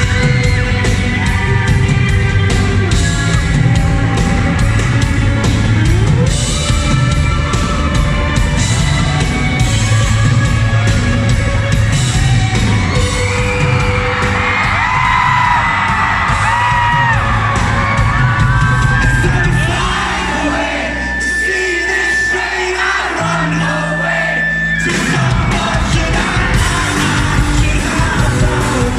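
A live band plays a rock-pop song with a male lead singer, and the audience whoops and yells. The bass and drums thin out for a few seconds about two-thirds of the way through, then come back in.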